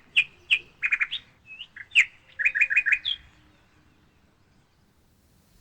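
Bird chirping: a string of short, sharp chirps, some in quick runs of four or five, that stops about three seconds in.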